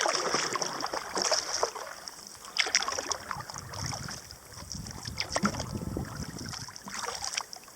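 Kayak paddle strokes: the blades dip and pull through the water in a steady rhythm, with splashing and dripping on each stroke.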